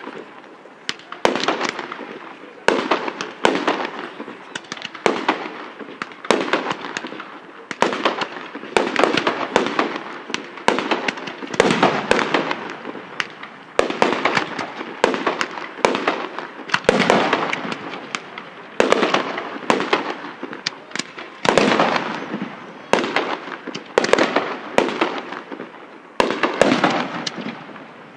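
Aerial firework shells bursting in a fireworks finale barrage: sharp bangs come one or two a second without a break, each trailing off over about a second.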